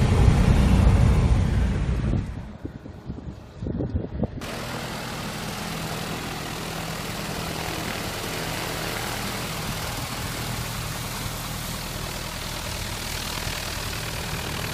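Single-engine Piper light aircraft's piston engine and propeller, loud from inside the cabin at first; after a short quieter break about two seconds in, the engine idles steadily as the plane taxis, heard from outside.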